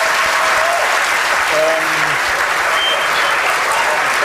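Studio audience applauding steadily and loudly, with a short voice cutting through about one and a half seconds in.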